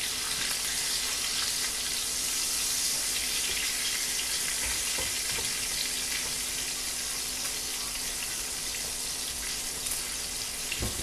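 Skin-on duck pieces sizzling in hot fat in a frying pan as they are seared and browned, a steady hiss.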